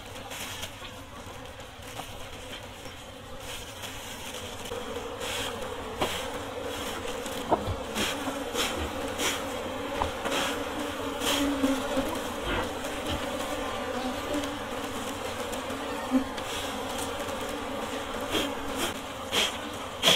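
Honey bees buzzing steadily around an opened log hive as the honeycomb is pulled out, with scattered short clicks and rustles throughout.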